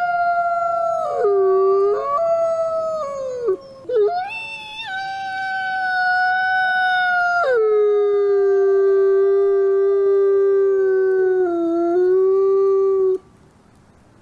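A wolf howling: long, held notes that slide down in pitch, with a short break about four seconds in. The last, lowest note is held for about five seconds and stops abruptly a second before the end.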